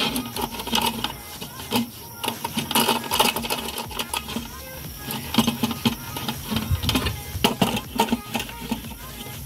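Irregular metal clinks, clicks and rattles of a kerosene hurricane lantern being handled, its base and wire frame knocked and jiggled.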